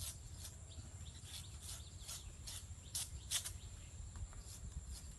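Quick, irregular scraping strokes, two or three a second, of a blade cutting into a date palm trunk, over a faint steady high tone.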